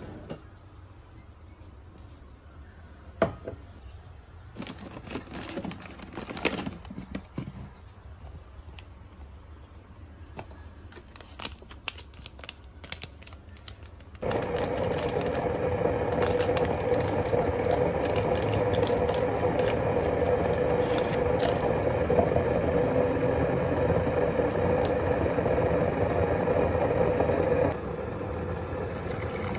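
Scattered light clicks and taps, then a steady electric appliance hum with a held mid-pitched tone that starts about halfway through and cuts off suddenly near the end.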